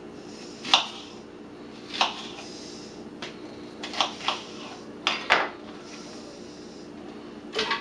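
Kitchen knife cutting through onion and knocking on a cutting board: about eight sharp chops at irregular intervals, two of them close together about four seconds in.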